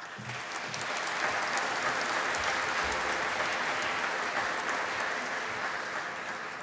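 Audience applauding, building up over the first second, holding steady, then fading toward the end.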